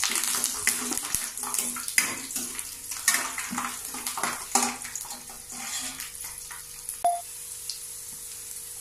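Garlic cloves and curry leaves sizzling in hot oil in a stainless steel pan during tempering, with a steel ladle clinking and scraping against the pan as they are stirred. There is a brief metallic ring about seven seconds in.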